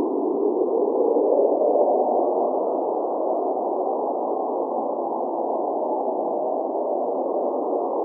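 Cold blizzard wind blowing: a steady rushing noise, confined to a low-to-middle band with no high hiss, swelling slightly about a second in and then easing back to an even level.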